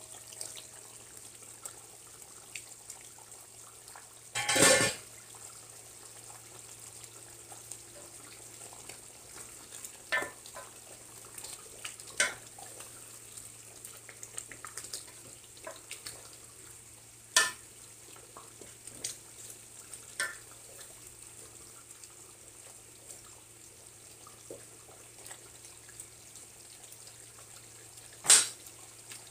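A pot of chicken and potatoes simmering in broth, a steady bubbling hiss. A metal pot lid clatters down about four seconds in, and a spoon knocks sharply against the metal pot several times while stirring.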